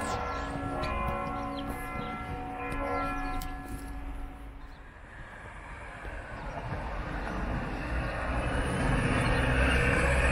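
Church bells ringing, several pitches sounding together and struck again about once a second, until they fade out about four seconds in. Then road traffic noise builds up, rising to its loudest near the end as a small flatbed truck drives past.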